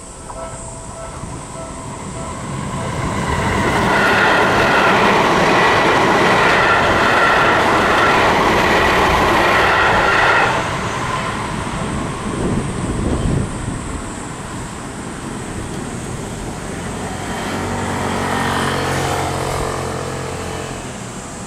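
Seibu Haijima Line electric train passing over a level crossing, with the crossing's warning bell ringing at first. The train noise builds over a few seconds into a loud rush of wheels on rail with some high wheel squeal, then drops off suddenly about ten seconds in. A lower humming rises and fades near the end.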